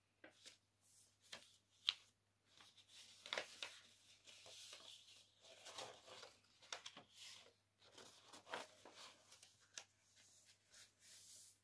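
Faint rustling and crinkling of a sheet of paper being folded and creased by hand, in scattered short crinkles and soft taps.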